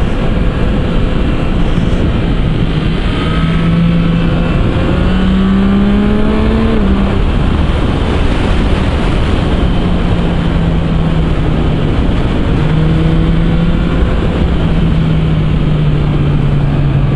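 Yamaha MT-09 SP's three-cylinder engine with an Akrapovič exhaust, heard while riding under heavy wind rush on the microphone. The engine note climbs for a few seconds, drops sharply about seven seconds in, then holds fairly steady and settles a little lower near the end.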